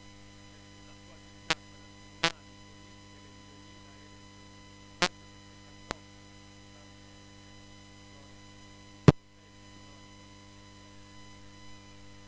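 Steady mains hum and buzz from the meeting room's sound system, broken by five sharp pops, the loudest about nine seconds in.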